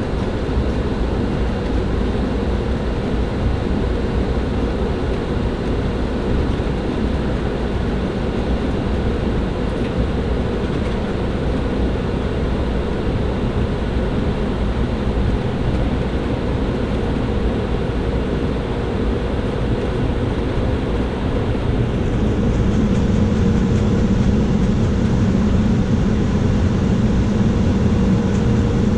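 An airliner's engines running with a steady hum over a low rumble. About 22 seconds in it grows slightly louder and deeper.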